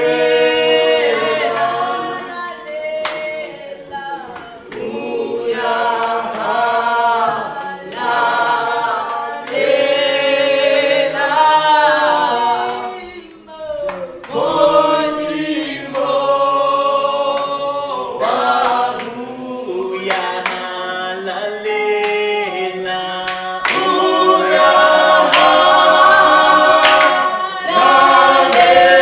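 Church congregation singing a worship song a cappella, many voices together in sung phrases with short breaks between them, growing louder in the last few seconds.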